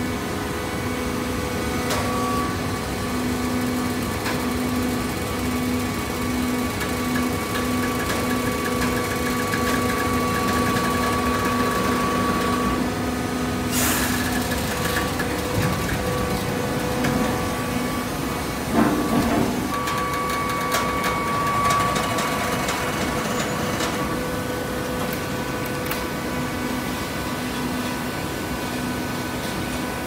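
Horizontal hydraulic baler running: a steady mechanical hum from its hydraulic pump and motor. A sharp metallic knock comes about fourteen seconds in, and a louder clank follows around nineteen seconds.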